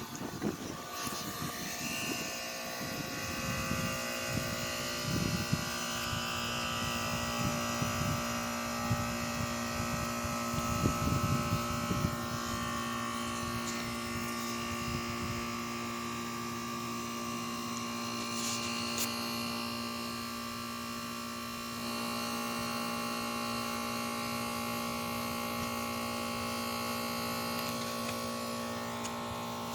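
1995 BDP heat pump outdoor unit running, its compressor and fan giving a steady hum. Low rumbling on the microphone comes and goes over the first dozen seconds, and the unit's sound steps up slightly about 22 seconds in.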